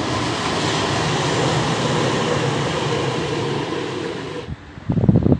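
Alstom Citadis Dualis tram-train passing, a steady rolling rumble and hiss that cuts off suddenly about four and a half seconds in. Gusts of wind buffet the microphone near the end.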